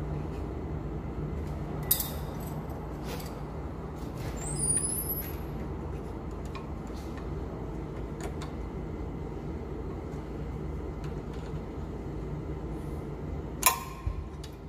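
Poulan Pro riding mower engine running at a steady idle, with two sharp clicks, about two seconds in and near the end.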